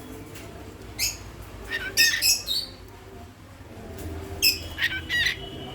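A pet bird squawking and chirping in short, sharp, high-pitched calls: one about a second in, a quick cluster around two seconds, and another run near the end.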